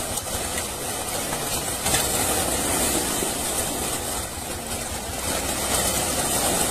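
Water splashing and churning as a mass of fish thrashes inside a seine net being drawn up in a pond, over a steady low rumble.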